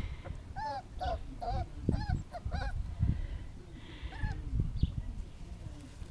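A string of short, arched animal calls, about two a second for a couple of seconds, then one more about four seconds in, over irregular low thumps.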